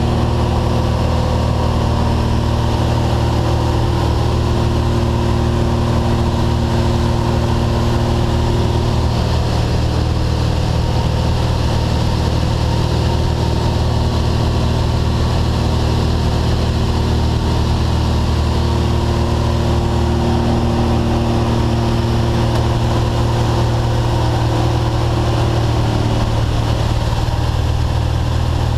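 Single-engine light aircraft's piston engine and propeller running with a steady drone, heard from inside the cabin during the climb to jump altitude.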